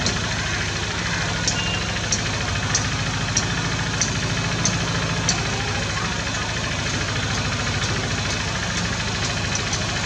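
A black-rumped flameback woodpecker tapping at a branch: short, sharp taps roughly every half-second to second through the first half and again near the end. Under the taps runs a steady low mechanical hum, like an idling engine.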